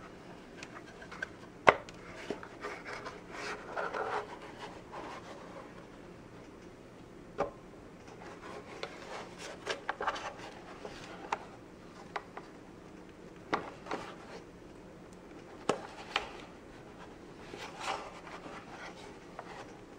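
Plastic parts of a Bissell compact upright vacuum's motor housing being handled and pushed together by hand: scattered clicks and knocks with rubbing and scraping, the sharpest knock about two seconds in.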